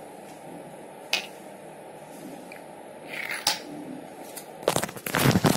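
Handling noise from craft materials on a table: a few sharp clicks and taps, then a louder cluster of knocks and rustling near the end, over a steady low room hum.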